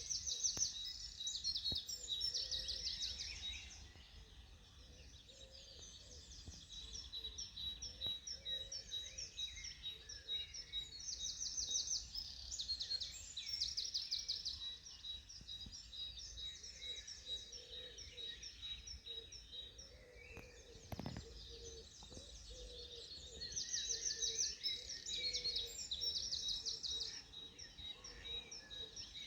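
Songbirds singing: rapid trilled phrases repeated every few seconds over a thin steady high tone and a low rumble, with one brief low thump about two-thirds of the way through.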